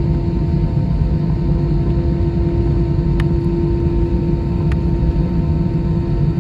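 Airbus A320 making a steady low rumble with a steady hum over it. Two faint clicks come about halfway through.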